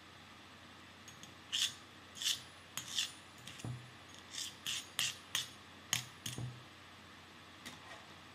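A series of about ten short scrapes and clicks, hard parts being rubbed and slid against each other, between about one and a half and six and a half seconds in.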